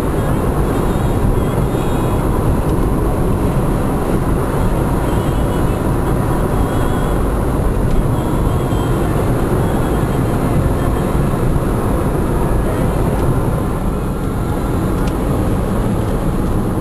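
Steady cabin noise of a car driving along: engine and tyre rumble on the road surface, heard from inside the car.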